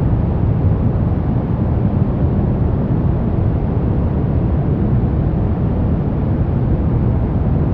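Steady white noise for baby sleep, a deep, even hiss heavier in the low end than the high, with no change in level or pitch.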